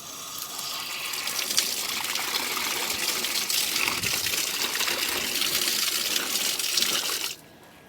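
Water gushing strongly from a pipe or tap outlet. It starts suddenly and stops abruptly near the end.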